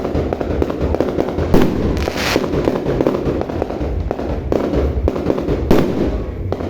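Fireworks going off: dense crackling pops over a steady low rumble, with louder sharp bangs about a second and a half in and again near the end.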